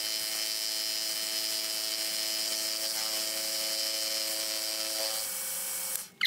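Marlow 3A milling machine running with an end mill cutting across a steel block: a steady mechanical whine of several held tones over a hiss. The tones stop about five seconds in and the sound cuts off abruptly soon after, with a single click.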